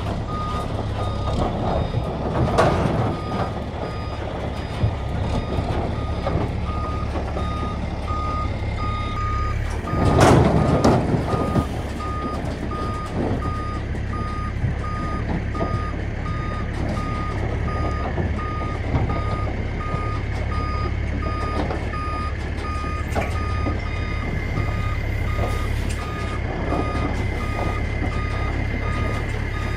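Semi truck's backup alarm beeping steadily in even repeats over the diesel engine's low running drone as the rig reverses a livestock trailer. A louder short rush of noise comes about ten seconds in.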